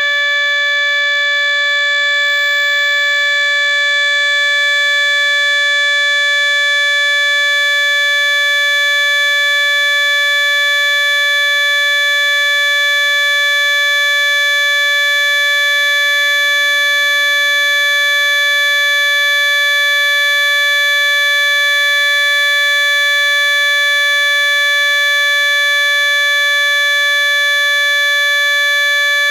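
Trumpet sound effect: one steady, unbroken note held on without any change in pitch or loudness.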